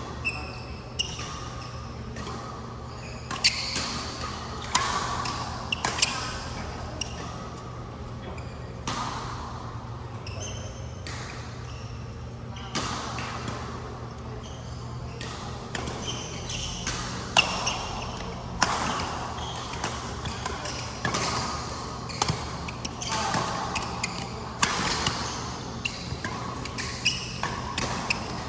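Badminton play in a large indoor hall: sharp racket hits on the shuttlecock at irregular intervals, with shoes squeaking on the court floor, over a steady low hum of the hall.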